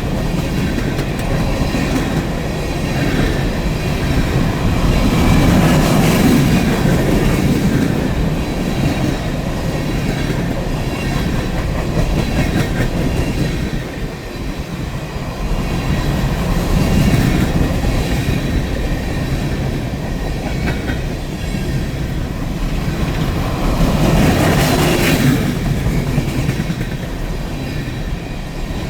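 Empty coal hopper cars of a freight train rolling past, wheels clattering over the rail joints. The noise swells twice, about six seconds in and again around twenty-five seconds.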